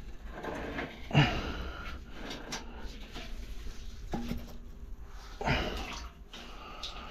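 Water sloshing and splashing in a flooded drain pit as a gloved hand works a drain-cleaning spring through it, with irregular knocks; the loudest splash comes about a second in.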